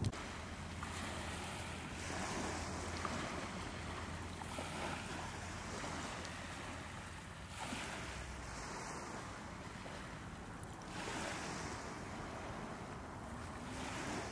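Small waves washing, swelling every two to three seconds, with wind noise on the microphone.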